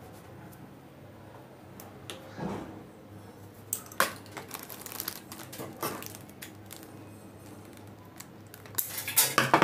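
Sequined fabric crinkling and clicking as it is handled, with scattered sharp clicks. Near the end comes a quick run of louder snips as scissors cut the sequined strip.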